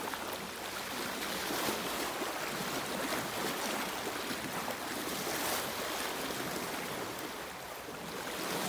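Shallow river water rushing and splashing, stirred by an elephant and its handler wading through it; a steady wash of water noise.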